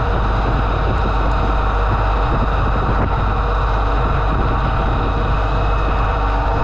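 Heavy engine running steadily: a constant low drone with a rushing hiss over it.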